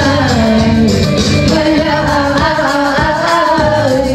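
A voice singing a melody over instrumental backing music.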